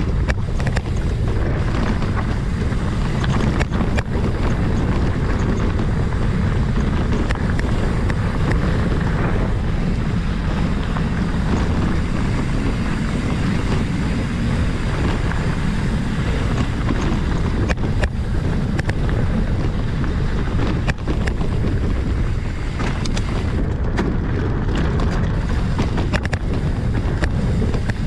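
Wind buffeting a bike-mounted camera's microphone while a Trek Roscoe mountain bike rides over dirt and rocky singletrack. Steady rushing noise with tyre crunch and frequent short clicks and rattles as the bike goes over bumps and stones.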